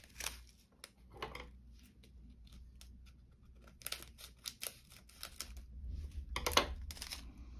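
Small clicks and rustles of craft supplies being handled on a wooden table, then a pair of scissors snipping open a small plastic bag of diamond painting drills near the end.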